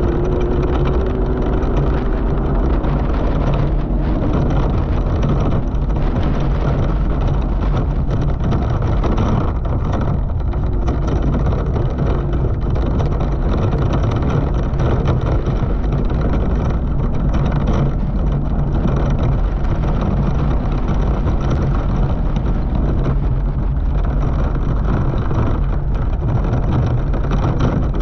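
Off-road race buggy's engine running steadily under load at speed on a rough dirt course, with short knocks from the bumps and wind noise on the microphone.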